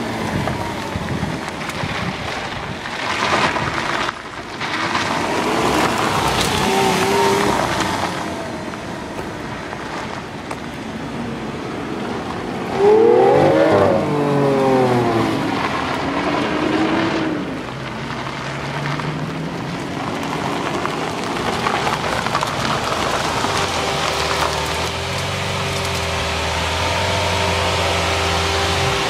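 Car engines revving, their pitch rising and falling several times, loudest in a sharp rise about thirteen seconds in; near the end an engine holds a steady drone.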